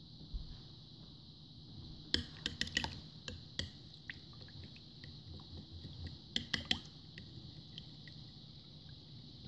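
Metal spoon stirring and beating eggs into milk and melted butter in a ceramic bowl, clinking against the bowl's side in quick clusters about two seconds in and again past six seconds, over a faint steady hiss.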